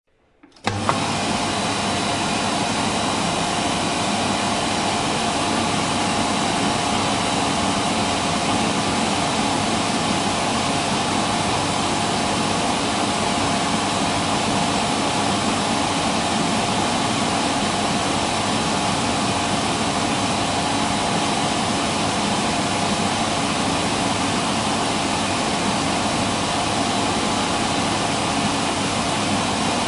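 Electric hand dryer switching on about half a second in and then blowing steadily: a constant rush of air with a steady motor whine in it.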